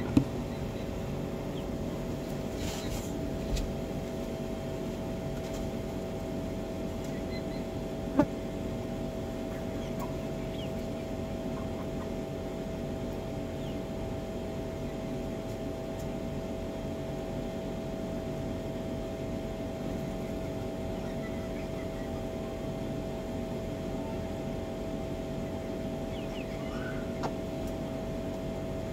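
Steady mechanical hum with a constant mid-pitched tone over an even low drone, broken by a single sharp knock about eight seconds in.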